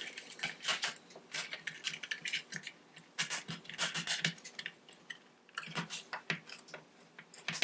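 Irregular clicks and rattles of hard plastic parts as a Roomba's brush module housing is handled, turned over and fitted together.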